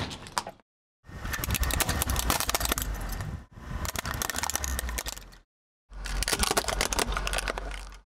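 A car tyre rolling slowly over plastic cups of soft red and green gel, the thin plastic cracking and crunching in a dense crackle over a low drone from the tyre. It comes in three takes, each broken off by a sudden silent cut.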